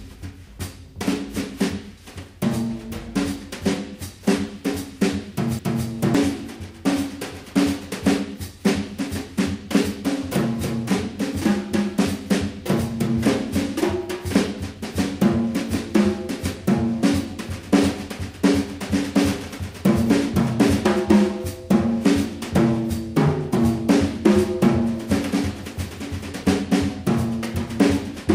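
Background music with a busy drum kit, many quick hits a second including snare and rolls, over a line of bass notes.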